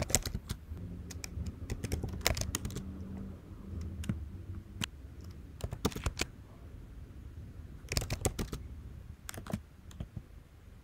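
Typing on a computer keyboard: quick runs of key clicks in several bursts, separated by short pauses.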